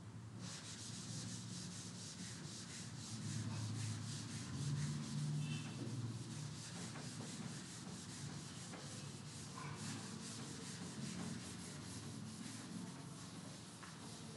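Chalkboard duster wiping a chalkboard clean, a steady rubbing scrape in quick, even back-and-forth strokes, starting about half a second in.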